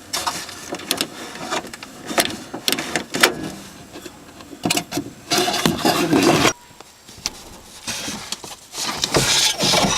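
Clicks, knocks and scraping of a car door latch mechanism being handled and worked by hand, with a louder rubbing stretch about five seconds in that stops suddenly.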